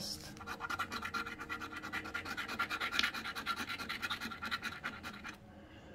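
A scratch-off lottery ticket being scratched: a quick run of short scraping strokes, about ten a second, stopping about five seconds in.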